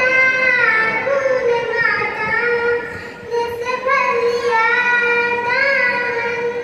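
A young boy chanting a devotional kalam into a microphone, in long melodic phrases with held notes that rise and fall, pausing briefly about three seconds in.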